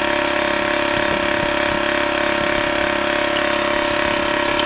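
A steady mechanical hum from a running machine, even in level and pitch, with a few faint low knocks.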